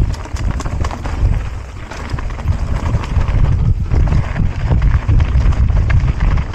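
Mountain bike rattling and clattering over a rough, rocky trail at speed, with rapid irregular knocks from the tyres and frame over a heavy low rumble.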